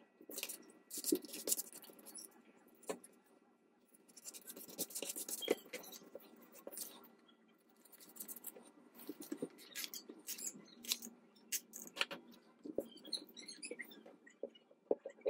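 Sheets of book paper rustling and scraping as they are handled, pressed flat and slid across a tabletop, with small taps of paper and fingers on the desk.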